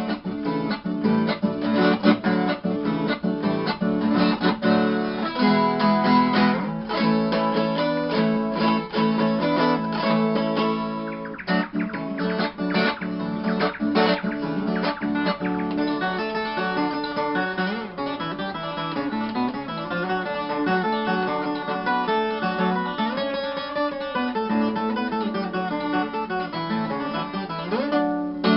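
Instrumental moda de viola: a Brazilian viola caipira played in the sertanejo country style, strummed chords in the first half, then a picked melodic line from about halfway.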